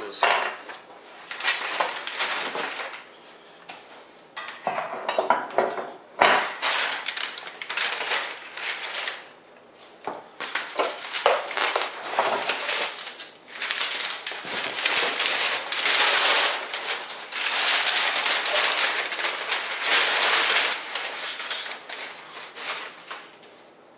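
Cardboard box and brown packing paper rustling and crinkling in long stretches as parts are dug out and unwrapped, with sharp light knocks of metal kit pieces being handled.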